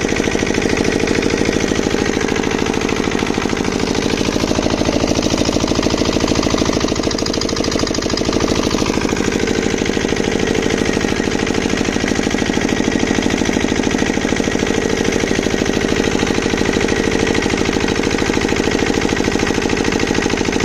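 Single-cylinder diesel engine of a water pump set running steadily with a rapid, even chugging. It is running with its gasket blown and smoke leaking out, which the owner takes for a failed gasket.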